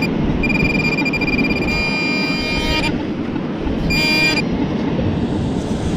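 Metal detector sounding a steady high-pitched target tone over a buried coin: one long tone of about two and a half seconds, then a short one about four seconds in, over a low background rush.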